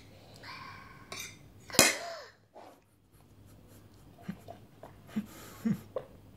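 A child takes a breath and sets a metal fork down on a plate with one sharp clink about two seconds in, then drinks water from a plastic cup with a few soft gulps in the second half.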